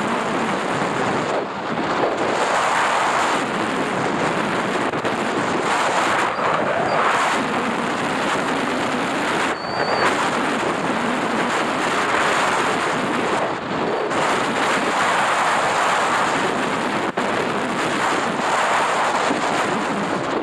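Wind rushing over the microphone of a motorcycle riding at highway speed, with road and engine noise beneath it; the rush swells and eases every few seconds.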